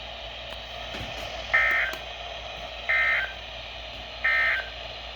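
EAS end-of-message data signal from NOAA Weather Radio, heard through a Midland WR-120EZ weather radio's speaker: three short, identical two-tone bursts about 1.4 seconds apart. It marks the end of the flash flood warning broadcast.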